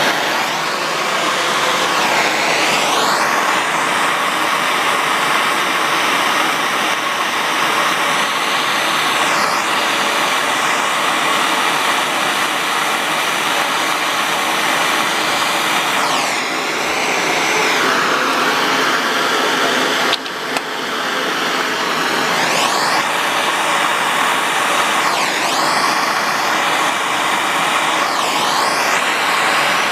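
Handheld gas soldering torch burning with a steady, loud hiss while it heats a copper pipe and fitting for a solder joint. Its tone sweeps up and down now and then, and it dips briefly about twenty seconds in.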